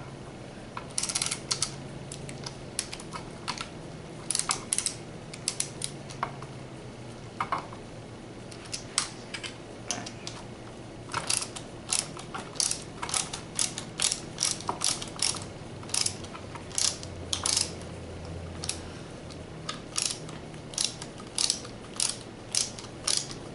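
Small hand driver turning screws into the plastic front suspension of a Traxxas Rustler RC truck, making uneven runs of sharp, ratchet-like clicks, about one or two a second.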